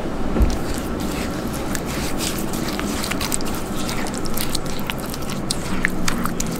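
Silicone spatula stirring a thick, wet chili-soy seasoning paste in a glass bowl: a steady run of sticky scrapes and small ticks against the glass.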